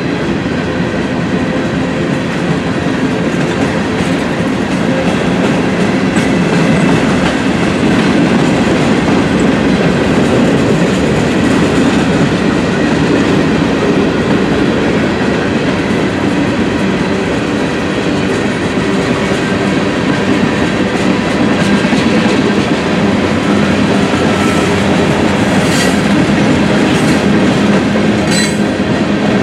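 Freight cars rolling past: a loud, steady rumble of steel wheels on the rails, with a few brief high squeals near the end.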